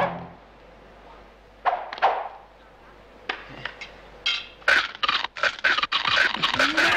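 Slapstick film fight: a music cue cuts off at the start, two sharp swishes or cries come about two seconds in, and from about five seconds a rapid clatter of hits and clashes mixes with yelling and scuffling.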